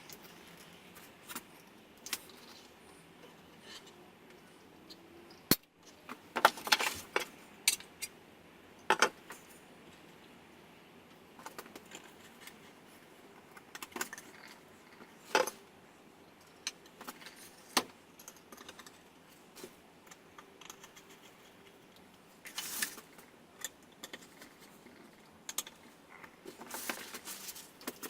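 Small metal hardware, such as light chain and screws, clinking and jingling as it is handled, in scattered short bursts with a sharp click about five and a half seconds in.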